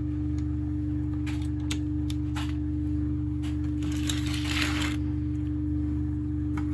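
Steady hum of a tumble dryer running, with a few light clicks of plastic parts being handled and a brief rustle about four seconds in.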